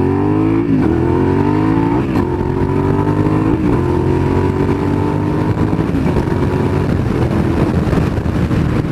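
Suzuki SV650S's 90-degree V-twin with an aftermarket exhaust accelerating hard, its pitch climbing and dropping at three quick upshifts in the first few seconds. It then holds a steady cruise, with wind noise on the helmet-mounted microphone building near the end.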